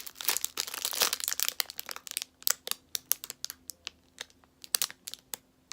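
Plastic packaging crinkling as it is handled: dense crinkling for about the first two seconds, then scattered sharp crackles and clicks.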